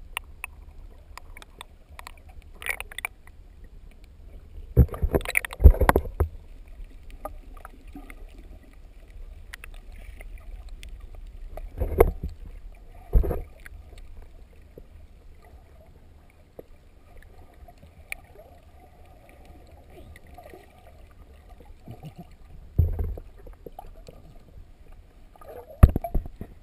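Muffled underwater sound picked up by an action camera held below the surface: a steady low rumble, broken by loud brief bursts of splashing and knocking about five seconds in, twice around twelve seconds, and twice near the end.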